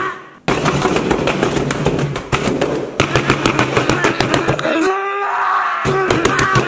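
A hand rapidly slapping and squishing sandwiches and crumbled food on a table, with many quick wet smacks in a row. The smacking breaks off briefly at the start, and a short pitched, voice-like sound comes in about five seconds in.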